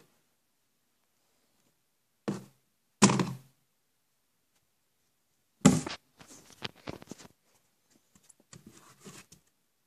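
A cardboard Priority Mail shipping box being handled: a short knock about two seconds in, a loud thump about three seconds in and another just before six seconds, then a run of lighter scuffs and clicks as the box and its lid are moved.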